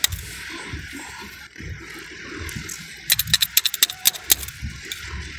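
Metal parts clinking and rattling in a quick run of sharp clicks about three seconds in, over a steady hiss.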